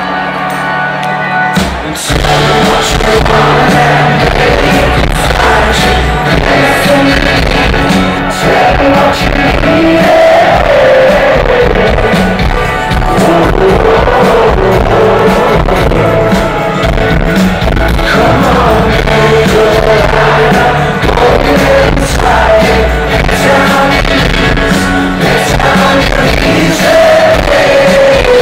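Live rock band playing a song with a singer, loud and heard from among the concert crowd; the band gets louder about two seconds in.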